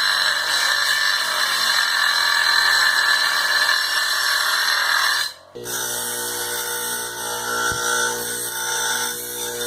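Small electric motor driving a tool that is pressed against material under load, giving a steady, rough high-pitched whine. About five seconds in it cuts off briefly, then the motor runs on with a steadier, lower humming tone.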